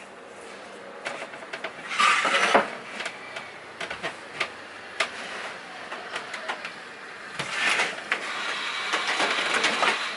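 Woodworking handling sounds: scattered knocks and clicks of wooden parts, with a brief scraping noise about two seconds in and a longer one over the last few seconds.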